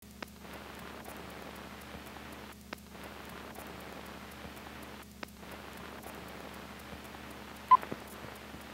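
Faint steady hiss and low hum from an old film soundtrack transfer, with four sharp clicks spread through it and a short tone blip near the end, which is the loudest moment.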